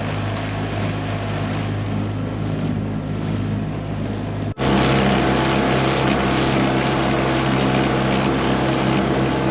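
Outboard motor on a small dinghy running steadily under way, with water and wind noise. After an abrupt break about four and a half seconds in, it is louder and a little higher in pitch.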